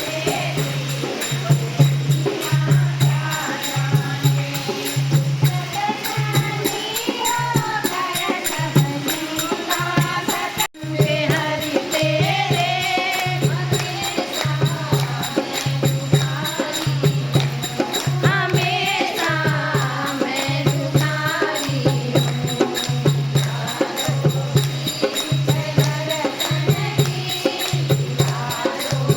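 Devotional bhajan kirtan: voices singing a Hindu hymn over a steady low beat, about three beats every two seconds, with jingling hand percussion. The music drops out for a moment about eleven seconds in.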